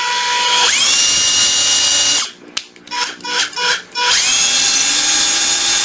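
Panasonic EZ7548 cordless multi impact driver running free with no load in impact screwdriving mode, as the trigger is worked to test it. The motor whine rises to full speed about half a second in and holds, cuts off near the middle, gives a quick string of short trigger blips, then winds up to full speed again.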